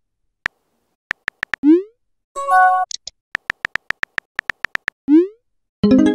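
Text-messaging app sound effects: rapid keyboard tap clicks as a message is typed, a short rising whoosh as it is sent, then a brief electronic alert chime. The pattern comes twice: a few taps, whoosh and chime in the first half, then a longer run of about a dozen taps, another whoosh and a chime near the end.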